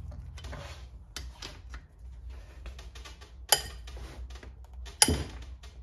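Metal spanner clicking and clinking on the cylinder head bolts of a motorcycle engine as they are loosened, with two sharp metallic knocks about three and a half and five seconds in.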